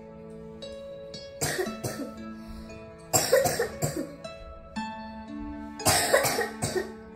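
A person coughing in three fits of several coughs each, about one and a half, three and six seconds in, the second and third fits the loudest, over plucked-string background music.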